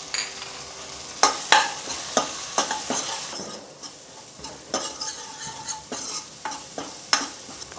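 Crushed ginger, green chillies and garam masala sizzling in a little hot oil in a non-stick kadhai, being sautéed. A spoon stirs them, scraping and knocking against the pan at irregular intervals over the steady sizzle.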